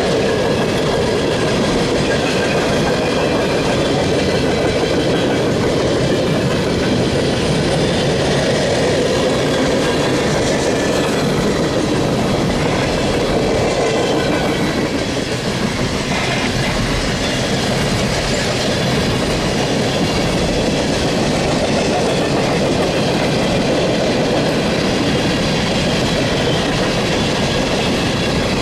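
A freight train's cars rolling past close by: a steady rumble and clatter of steel wheels on the rails, going on without a break.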